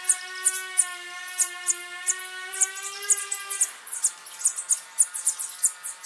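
Sparrows chirping: many short, very high chirps a second, over a held background music chord that changes a little past halfway.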